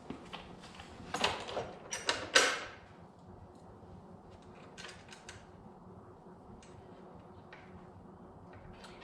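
Metal clinks and knocks as a steel pannier rack is worked into its mount on a motorcycle and its bolts are threaded in by hand. A quick cluster of knocks comes about a second in, and a few light ticks follow.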